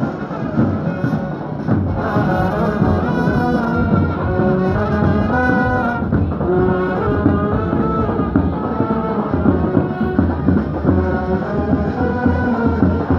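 Indian street brass band playing a loud marching tune, with sousaphones, trumpets and bass drums.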